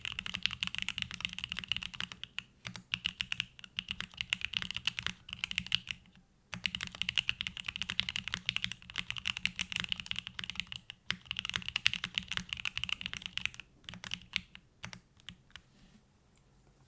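Typing on a gasket-mounted QK65 V2 keyboard with a carbon-fibre plate, hand-lubed Gateron Box Pink linear switches and GMK Bento keycaps. Fast, continuous runs of keystrokes are broken by a few short pauses, thinning to scattered single keypresses near the end.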